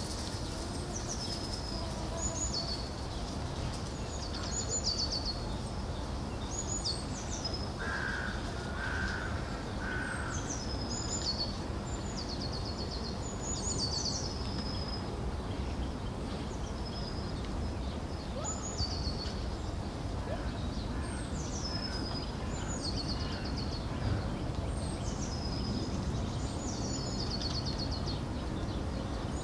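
Songbirds singing over and over, each phrase a high call that falls in pitch into a quick trill. Three short, lower calls come about eight seconds in, over a steady low background rumble.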